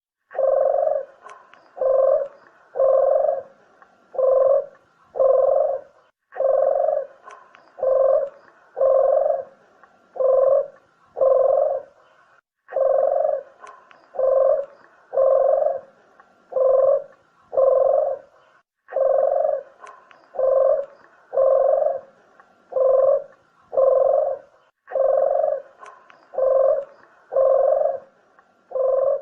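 Ringneck dove (burung puter) cooing: low coos about one a second, in phrases of five or six notes that repeat about every six seconds with a short pause between.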